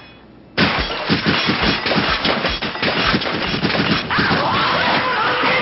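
Nail gun firing nails in rapid succession: a fast, unbroken string of sharp bangs, roughly ten a second, starting about half a second in.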